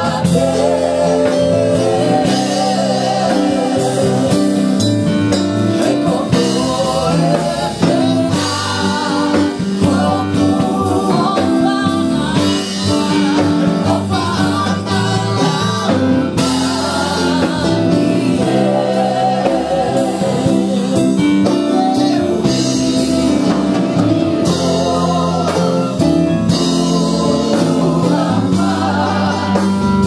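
Live gospel praise-and-worship band: several singers on microphones holding long notes with vibrato, over drum kit and electric guitars, amplified through PA speakers.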